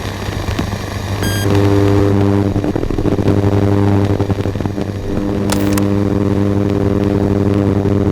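Radio interference sound effect: a steady low electrical hum with a harsh buzzing tone joining about a second and a half in, dropping out briefly twice, and a short burst of static about five and a half seconds in.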